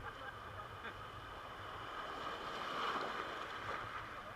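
Rushing river water around a raft, swelling to its loudest about three seconds in and then easing.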